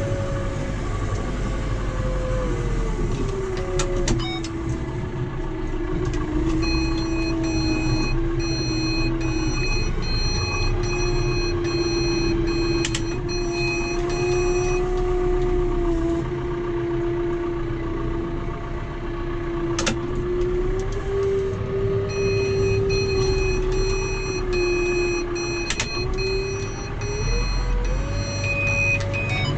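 John Deere tractor running steadily at field speed. Its steady whine drops in pitch about three seconds in and climbs back near the end. Rapid series of high electronic beeps sound for several seconds in the middle and again later, with a few sharp clicks.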